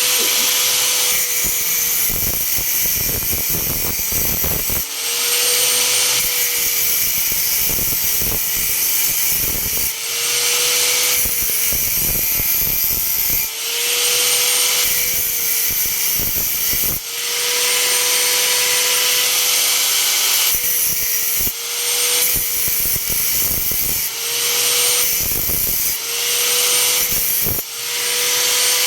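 Metalworking with a power tool: a motor whines steadily while a loud crackling hiss comes and goes every few seconds, the whine dipping and picking up again at each change. Near the end the whine slides down as the motor winds down.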